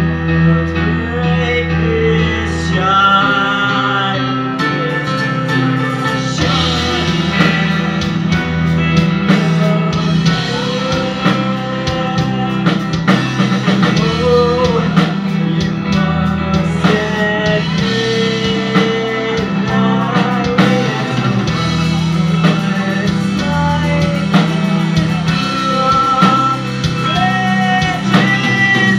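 Metal band playing live: distorted electric guitar, bass and drums, with a melodic lead line moving over a held low bass note. The drumming grows busier about six seconds in.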